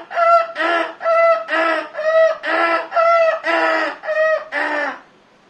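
A man imitating a bird with his voice through cupped hands: a fast run of about ten short, loud, high calls, roughly two a second, that stops about five seconds in.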